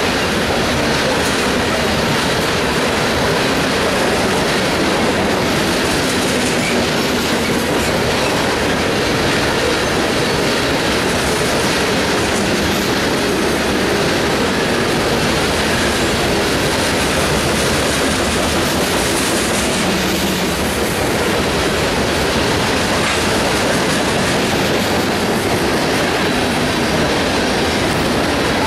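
A freight train's covered hopper cars rolling past: a steady, loud rumble and rattle of steel wheels on the rails.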